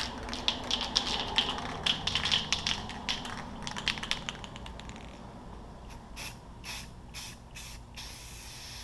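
Aerosol can of Rust-Oleum matte clear coat being shaken, its mixing ball rattling about three times a second, then spraying: a few short spurts and, near the end, a steady hiss.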